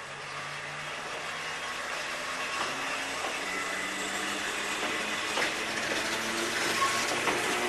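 A single-car electric railcar pulls in along the platform and passes close by. Its running noise grows steadily louder, with a few sharp clicks in the second half.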